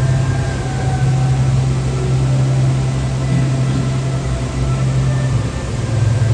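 A loud, low, steady hum at one pitch, dropping out briefly about five and a half seconds in and then resuming.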